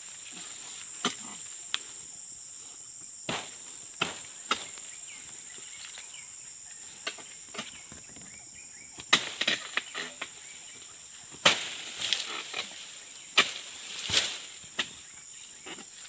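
A dodos, an oil-palm harvesting chisel on a long pole, jabbing and cutting into the base of palm fronds and fruit-bunch stalks: a dozen or so sharp, irregular chopping knocks, coming faster and louder in the second half. A steady high buzz of insects runs underneath.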